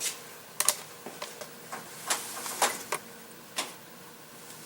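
Scattered light clicks and taps, about eight in all, as the plastic ignition rotor is worked off the distributor shaft and handled.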